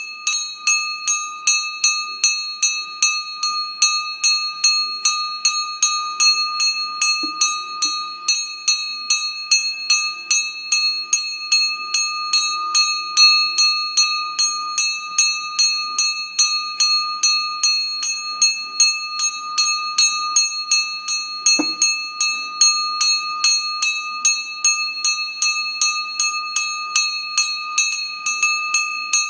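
Puja hand bell rung continuously and evenly during a camphor aarti, about three strikes a second, with a steady ringing tone sustained between strikes.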